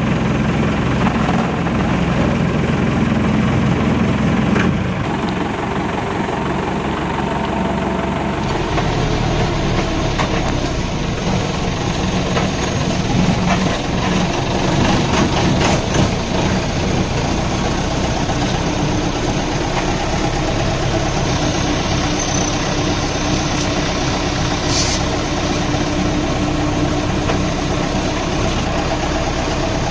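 Safari jeep's engine running steadily as the vehicle drives slowly, with a few brief knocks and rattles partway through.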